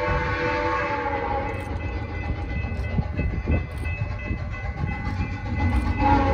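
Steam locomotive whistle blowing a chord, which fades about a second in and sounds again near the end. In between, the locomotive is working hard with uneven exhaust beats and a low rumble of the train on the rails.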